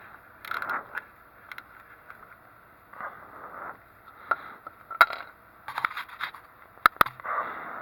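Hand tools and a plastic trim panel being worked under a car: irregular metallic clicks and clinks with short scrapes, a few sharp clicks standing out about five and seven seconds in.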